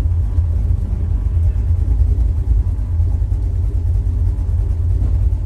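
A vehicle engine running steadily with a low, even rumble, heard from inside the mud-covered cab.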